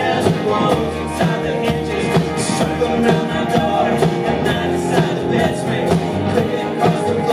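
Live acoustic guitar, electric guitar and upright bass playing an instrumental passage with a steady beat.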